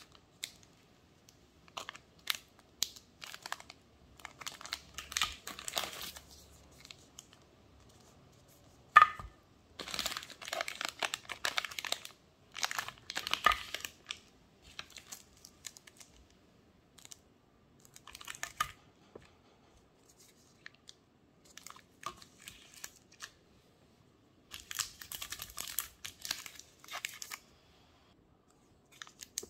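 Crinkling of plastic chocolate-bar wrappers being handled and laid on a ceramic plate, in irregular bursts with quiet gaps between. A single sharp tap about nine seconds in is the loudest sound.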